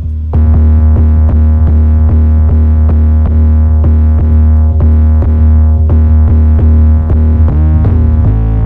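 Trap beat playing back: a long, loud, distorted 808 bass note held under steady drum-machine hits, with the 808 moving to a higher note near the end.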